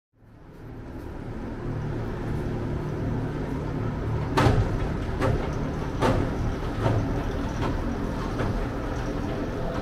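Roller coaster train running along steel track overhead: a steady rumble that fades in, then from about four seconds in a row of clacks roughly one every 0.8 seconds, the first the loudest.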